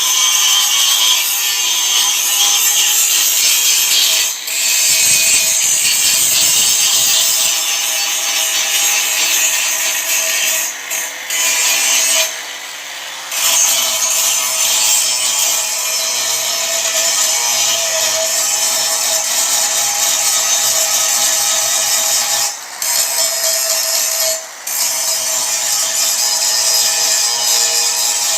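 Angle grinder grinding down weld beads on metal: a loud steady grinding hiss over the motor's whine, with a few brief drops when the disc comes off the work, the longest lasting about a second.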